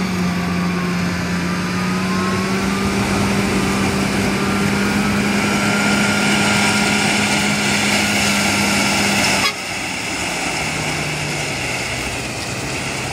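A heavy machine's engine running at a steady pitch, with surf hissing behind it. The sound cuts off abruptly about nine and a half seconds in, and a quieter, lower engine note carries on.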